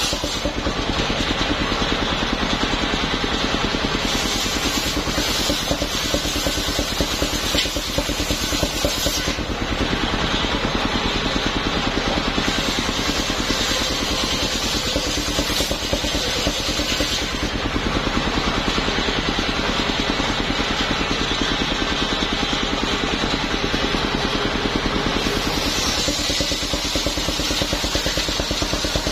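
Engine of a homemade vehicle-mounted circular sawmill running steadily as its blade rips a waru log lengthwise, with a higher cutting hiss that swells and fades in stretches as the log is pushed through.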